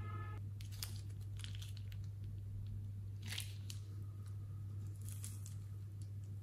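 Thin plastic piping bag crinkling and crackling in irregular bursts as a hand squeezes and handles it, the loudest crackle about three seconds in, over a steady low hum.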